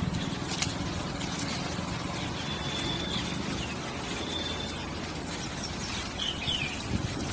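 Steady outdoor background noise with a low hum, and a few faint, thin, high bird whistles and short falling chirps in the middle and near the end.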